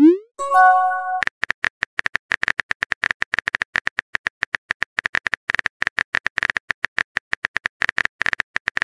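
Simulated phone-keyboard typing clicks from a texting-story app, rapid and even as a message is typed out. At the very start a short rising pop and a brief bell-like chime sound as the previous message is sent.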